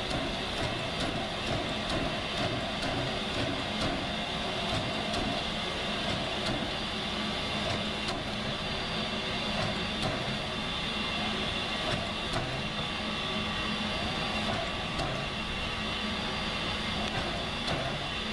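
Steam locomotive No. 734, a 2-8-0 Consolidation, approaching under steam: a regular beat of exhaust chuffs over a steady hiss of steam and running noise.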